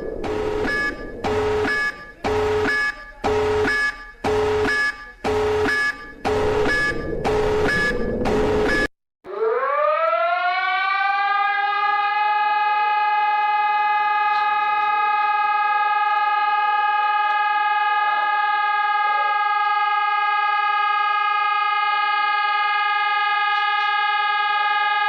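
Civil defence sirens: first a pulsed signal switching on and off about once a second, about eight to nine times, then after a short break a siren winds up, rising in pitch, and holds one steady tone.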